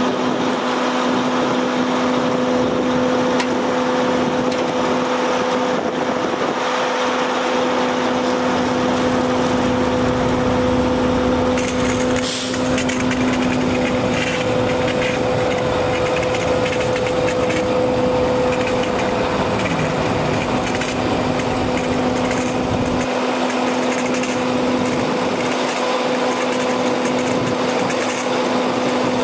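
A 2008 Mack CHU613 water truck's pump runs with a steady hum while water hisses out of the hose-reel nozzle in a continuous jet.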